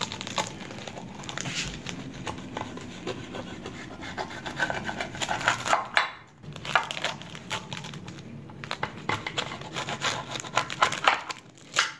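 Knife sawing through the crisp, flaky phyllo crust of a baked spanakopita in a glass baking dish: crackling and crunching in stretches, with short pauses between cuts near the middle. Near the end a metal spatula is slid under a piece.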